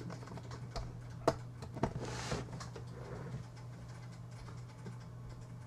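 A few faint clicks and knocks, with a short rustle, from plugging a Logitech wireless headset's USB receiver into the computer. A steady low electrical hum runs underneath.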